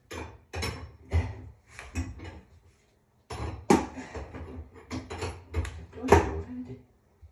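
A string of about ten sharp knocks and clatters of hard objects being handled and set down, with a short quiet gap about halfway.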